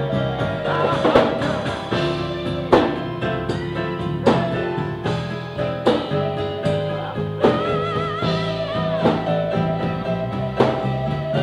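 Live blues-rock band playing: drum kit, bass guitar and keyboard, with heavy drum hits landing about every second and a half and a wavering high melody line about two-thirds of the way through.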